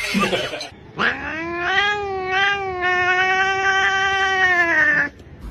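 Domestic cat giving one long, drawn-out yowl that rises at the start, then holds with a slight waver for about four seconds before stopping abruptly.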